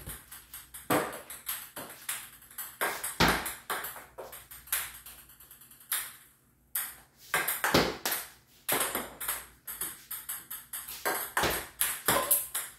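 Plastic table tennis ball clicking sharply and irregularly, several times a second, as it is struck with a racket and bounces off hard surfaces, with a brief pause about six seconds in.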